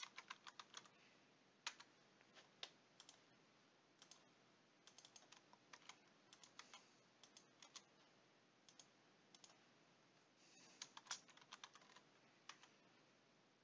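Faint computer keyboard typing: short runs of keystrokes with pauses between, the densest runs at the very start and near the end.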